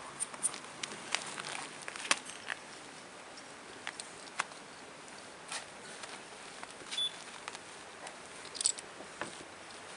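Scottish Fold kittens playing: irregular light taps, scratches and patter of small paws scampering and pouncing on a quilted pad, with a few sharper clicks.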